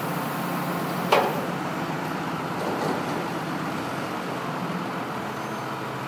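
Heavy truck engine running steadily while its crane lowers a large tree-trunk section into the truck bed. A single sharp, loud bang about a second in.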